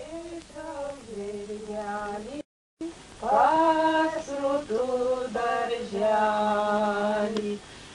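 A single voice singing slow, held notes that step up and down in a simple melody, broken by a brief moment of silence about two and a half seconds in.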